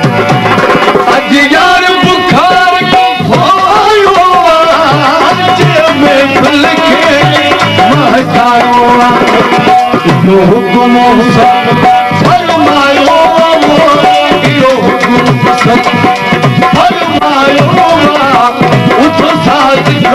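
Live Sindhi folk song: a man sings into a microphone over a yaktaro and a hand-played dholak drum.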